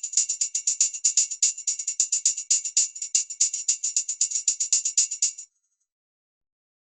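Tambourine jingles rattling in a quick, even run of strokes, several a second, bright and metallic; it stops suddenly about five and a half seconds in.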